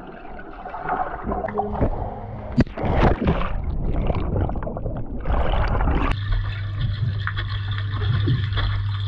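Underwater pool sound picked up by an action camera: muffled bubbling and splashing as a swimmer plunges in, with a few sharp splashes about three seconds in. About six seconds in it changes abruptly to a steady low hum under the water.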